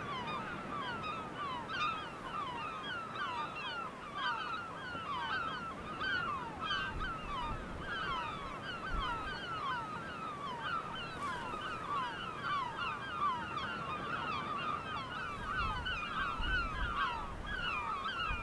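A large flock of birds calling continuously, many short, downward-sliding calls overlapping one another.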